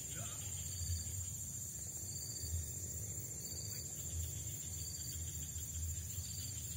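Crickets chirring in a steady high-pitched drone, with a shorter chirp repeating about every second and a half, over a low rumble that swells and fades.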